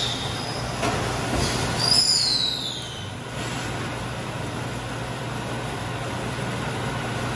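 Sausage packaging machine running with a steady hum. About two seconds in there is a brief high whistle that falls in pitch.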